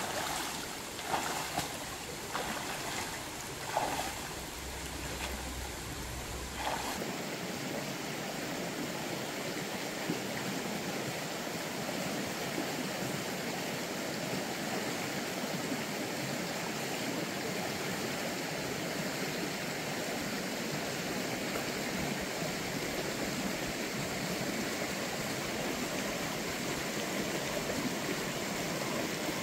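Footsteps wading and splashing through a shallow rocky stream, about one splash a second, then from about seven seconds in a steady rush of flowing stream water.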